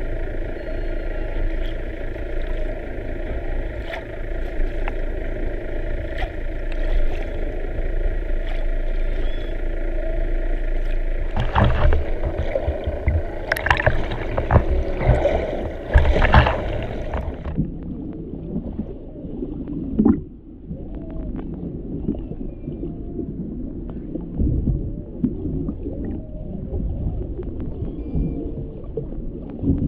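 Humpback whale song heard underwater: moans and sweeping calls that rise and fall. For the first half a steady hum, with a few knocks and clatters, runs under it. A little past halfway the hum stops abruptly, and the curving calls carry on over quieter water.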